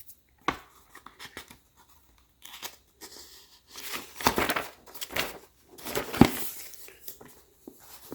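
Hands handling small parts and their wrapping: irregular rustling and crinkling with several sharp clicks, the loudest about six seconds in.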